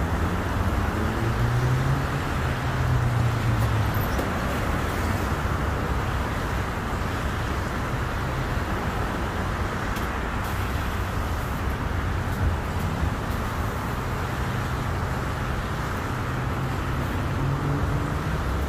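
Steady road-vehicle noise: a low engine hum with traffic, holding level with slow shifts in pitch.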